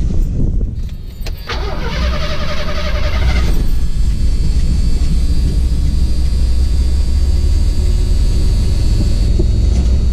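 1983 Ford Mustang engine being started: the starter cranks briefly about a second and a half in, the engine catches within two seconds and then idles steadily. It starts at once in park with the newly fitted neutral safety switch.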